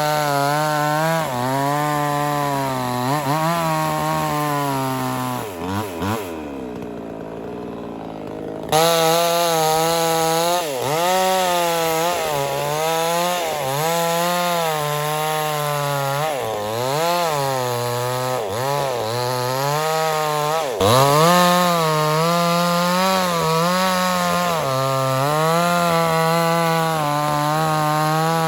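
Small two-stroke chainsaw running at high revs and cutting wood, its pitch dipping and rising again every second or two as the chain bogs down in the cut and frees up. About six seconds in the engine falls to a lower, quieter speed, then jumps back to full throttle a couple of seconds later.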